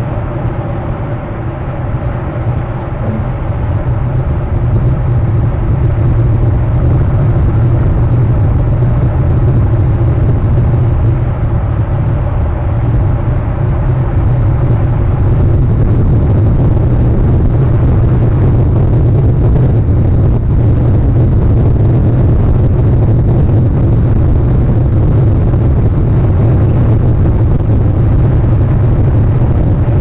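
A steady low rumbling noise that grows a little louder over the first several seconds, then holds.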